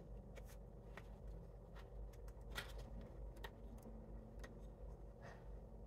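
Faint, scattered clicks and light rustles of oracle cards being handled, over a low steady hum.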